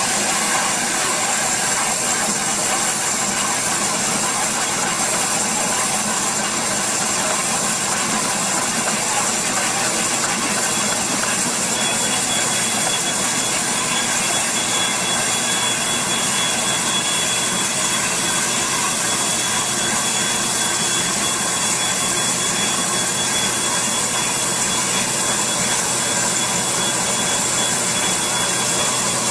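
Water-well drilling rig running steadily as its drill rod bores down into the ground: constant engine noise with a strong hiss, and a thin high whine that comes in about twelve seconds in.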